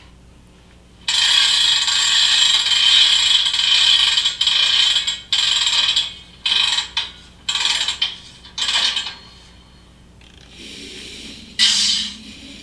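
Handbrake sound effect from a sound-equipped model locomotive, played as a handbrake is set on a car: a mechanical ratcheting clatter, one long run of about four seconds, then several short bursts. A lower, steadier locomotive engine sound comes up near the end.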